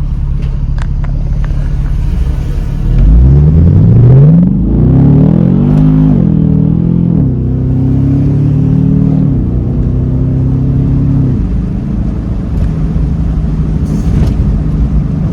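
Tuned Camaro SS's L99 6.2-litre V8, heard from inside the car: a steady cruising drone, then about three seconds in the engine revs up hard under acceleration, its pitch climbing fast. The pitch then drops and climbs again at several gear changes before it settles to a steady drone near the end.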